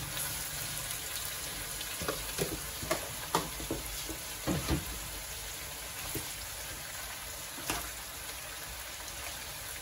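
Food sizzling steadily in a frying pan, with a few light knocks of a utensil stirring it in the first half.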